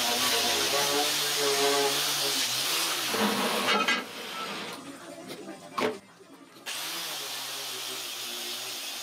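Angle grinder running against a steel plate, grinding its surface. It stops a little before halfway, there is a sharp knock as the plate is moved, and the grinder runs again, less loudly, from about two-thirds of the way in.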